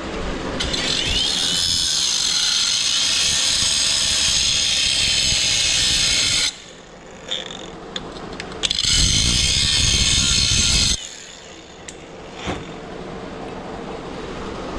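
A high-speed power tool running in two bursts, the first about six seconds long and spinning up at its start, the second about two seconds.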